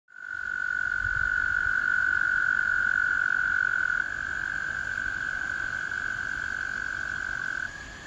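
American toads trilling: one long, steady, high musical trill that drops a little in loudness about halfway, and a slightly higher-pitched, quieter trill from another toad taking over near the end.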